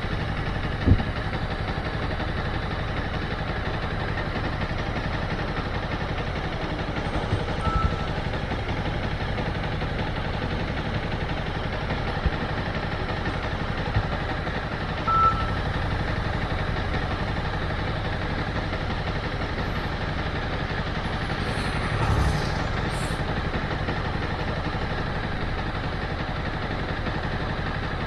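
Motorcycle engine running steadily at low revs. Two short high beeps come through, about a third of the way in and again about halfway.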